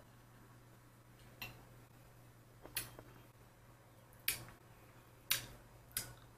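Five short, sharp clicks, unevenly spaced about a second apart, over a faint steady low hum in a quiet room.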